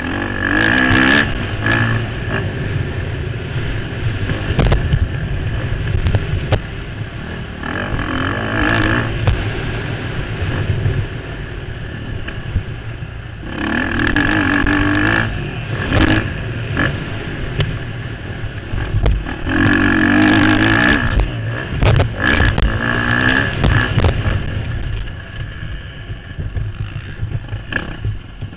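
KTM motocross bike engine on a race track, heard from the rider's helmet, revving hard in repeated bursts a couple of seconds long with the throttle backed off in between, over a constant low rush of wind on the microphone.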